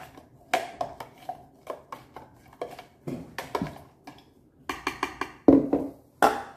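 A spoon stirring lemonade in a plastic pitcher, with irregular clinks and knocks as it hits the sides, several close together a few seconds in and again near the end.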